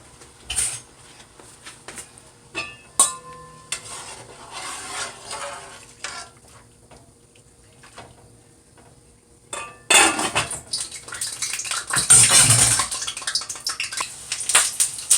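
Kitchen pots, pans and metal utensils clattering and knocking, one knock ringing briefly about three seconds in. From about ten seconds in, a louder, continuous rush of noise mixed with clatter.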